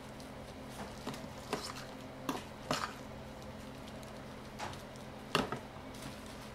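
Light clicks and taps as a spoon and plastic-gloved hands handle tuna filling while gimbap is assembled, about five scattered ticks with the sharpest a little past five seconds in. A steady low hum runs underneath.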